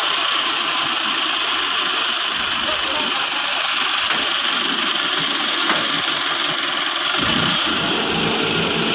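Massey Ferguson 385 tractor's four-cylinder diesel engine running steadily with the sand trolley hitched, its note turning clearer and more even about seven seconds in.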